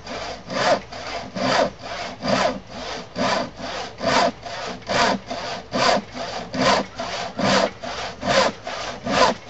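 A sharp hand crosscut saw cuts across a thick glued-up wooden workbench top. It goes in a steady rhythm: a strong push stroke a little more often than once a second, each followed by a softer return stroke.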